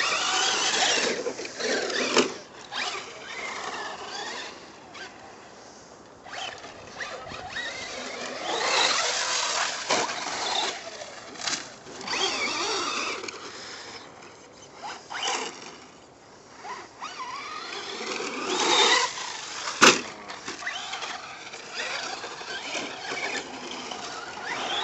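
Traxxas 4x4 radio-controlled trucks running on dirt, their motors giving a high-pitched whine that rises and falls with the throttle in repeated bursts. There is a sharp knock about 20 seconds in.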